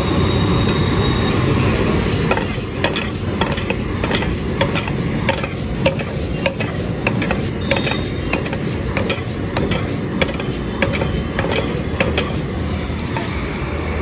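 Metal spatula stirring, scraping and clattering against a large iron kadai as onions and tomatoes fry, over a steady frying sizzle and the rush of the gas burner. The sharp irregular scrapes and clacks start about two seconds in.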